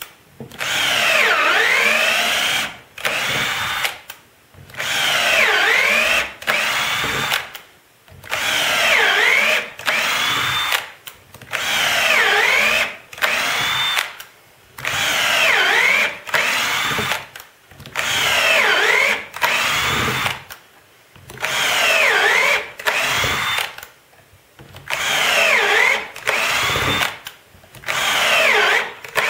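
Power drill driving screws into hard maple in repeated runs of about two seconds each. Its motor pitch dips and recovers under load, and short trigger blips and brief pauses fall between runs.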